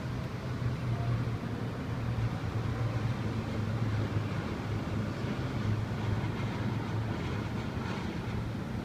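A steady low rumbling hum over an even rushing noise, unchanging throughout.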